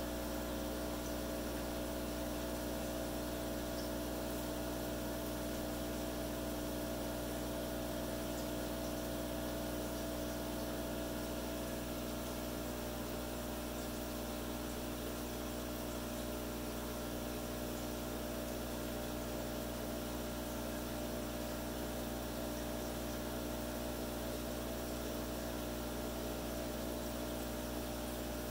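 Aquarium water pump and filtration running: a steady electric hum with an even hiss behind it.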